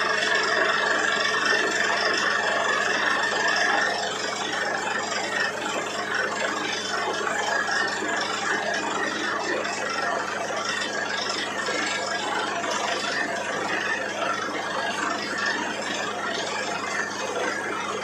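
Borewell drilling rig running steadily: a constant engine hum under dense mechanical noise. A high whine stops about four seconds in, and the whole sound gets a little quieter.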